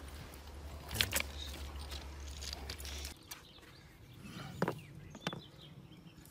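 Handling noises: a few sharp clicks and knocks, two close together about a second in and two more about five seconds in, over a low hum that cuts off about three seconds in.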